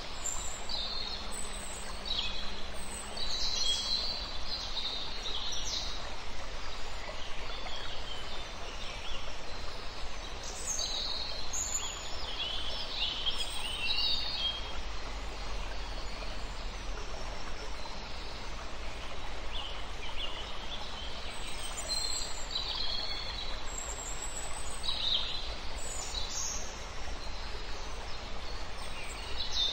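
Birds chirping and calling in scattered bunches over a steady hiss of outdoor background noise.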